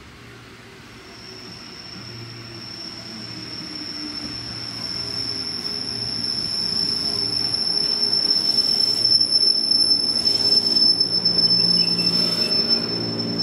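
JR 205 series eight-car electric train pulling into a station platform: a steady high-pitched squeal over the rumble of its wheels and running gear, growing louder as the train comes closer.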